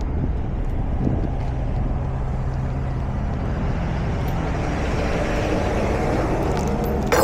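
A heavy diesel engine idling steadily, with a short clatter right at the end.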